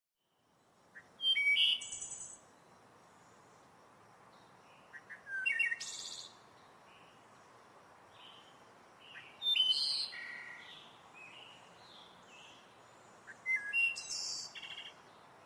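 Rainforest ambience: birds calling in four loud bursts of chirps and whistles, about four seconds apart, with softer chirps between them over a steady background rush. It fades in just after the start.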